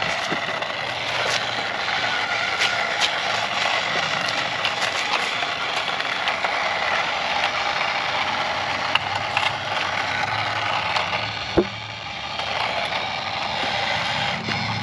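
Battery-powered toy RC car running: its small electric motor and gears whirring with clattering and clicking from the wheels and plastic body, and one sharp knock about two-thirds of the way through.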